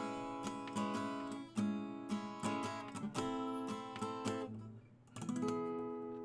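Acoustic guitar strummed in a run of chords, picked up close at the sound hole. Just after a brief pause near the end, a last chord is struck and left to ring and fade.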